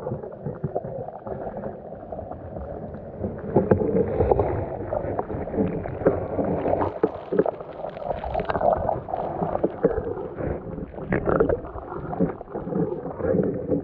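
Underwater sound recorded inside a camera housing: a churning rush of surging seawater, growing louder about three and a half seconds in, with many scattered sharp clicks and knocks.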